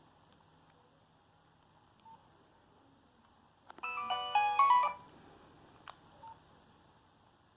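A Nokia 6225 mobile phone playing a short, quick ringtone melody through its speaker: a rapid run of about a dozen beeping notes lasting about a second, starting about halfway in. A couple of faint clicks follow.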